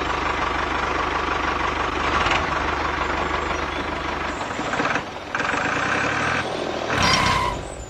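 A vehicle engine running steadily. The sound changes after about four and a half seconds, with a short break and then higher steady tones.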